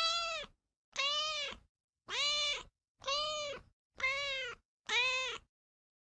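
Kitten meowing six times, about once a second, each thin cry rising and then falling in pitch.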